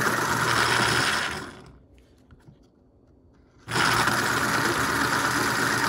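Boston Model 18 electric pencil sharpener's motor running and its cutter grinding down a pencil, in two runs: the first dies away about a second and a half in, and the second starts abruptly about three and a half seconds in. The sharpener is engaging and cutting normally again, its 3D-printed replacement gear now driving the cutter.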